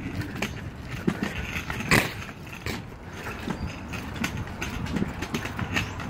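Footsteps on a concrete sidewalk, irregular short knocks and scuffs about every half second to second, with one sharper, louder knock about two seconds in.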